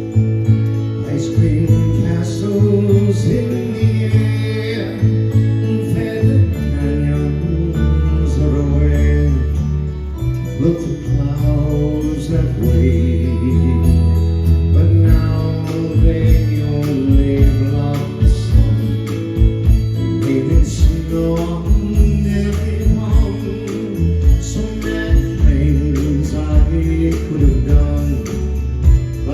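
Live band music: a song played with a heavy bass line and sustained chords, with drum hits growing more prominent from about midway.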